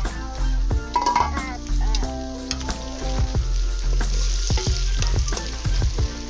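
Dry fish and onion frying in palm oil in an aluminium pot, sizzling while they are stirred, with a few light clicks of the spoon. Background music with a steady bass beat runs under it, and the sizzle swells a few seconds in.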